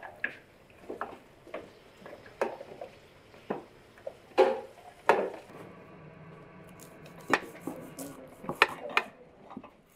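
Irregular metallic clatter of a ladle and utensils knocking against a large cooking pot and a metal baking tray as chunks of cooked meat are moved across. Near the end, a few sharp taps of a knife cutting through a baked roll on a plastic cutting board.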